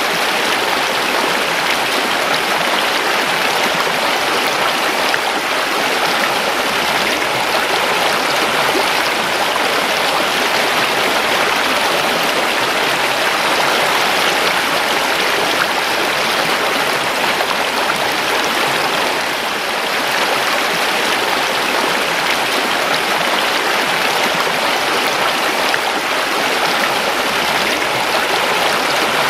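A creek flowing over stones: a steady, rushing babble of water.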